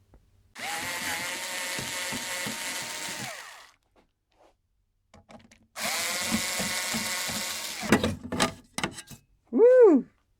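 Electric screwdriver running in two steady bursts of about three and two seconds, a constant motor whine, as screws are driven out of an electronics unit's casing. A few short clicks follow the second run.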